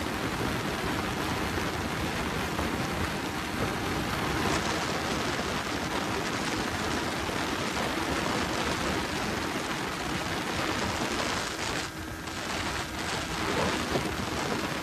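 Wind rushing hard over the microphone of a motorcycle riding at speed, drowning out most else, with a faint steady engine tone beneath and a brief easing of the wind about twelve seconds in.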